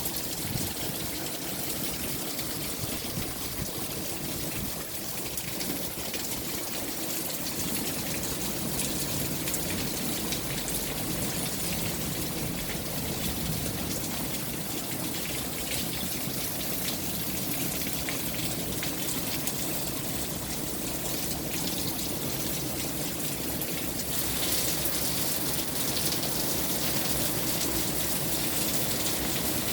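Steady rain falling, an even hiss of drops that grows a little heavier about three quarters of the way through.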